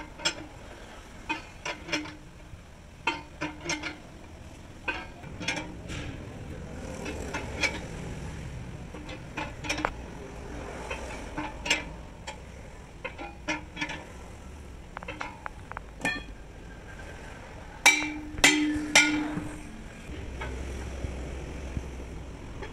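Irregular metal clanks and knocks from a hand-levered tool being worked on a steel truck wheel rim, some with a short ring. Near the end come three louder ringing metal strikes in quick succession.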